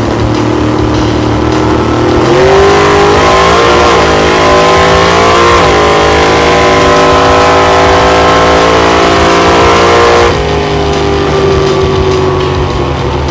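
Drag-racing Chevrolet Impala's engine at full throttle on a drag pass, heard from inside the car: the pitch climbs in steps at the gear changes about two, four and six seconds in and holds high. About ten seconds in it drops suddenly as the throttle is lifted, then falls slowly as the car coasts.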